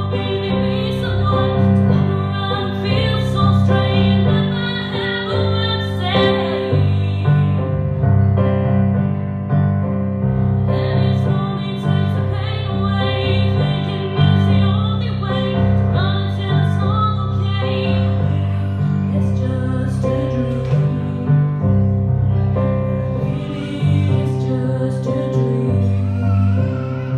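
A woman singing a slow, tender song while accompanying herself with chords on an electric piano-style keyboard, heard live through a small PA.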